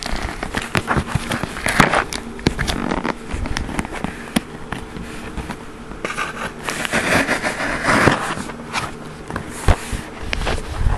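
Cardboard shipping box and its packing being handled and opened: crackling and rustling with many sharp irregular clicks and scrapes.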